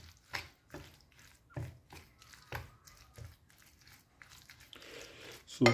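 Metal spoon stirring chopped mustard greens into a thick millet-flour batter in a bowl: irregular soft scrapes, squelches and light clicks.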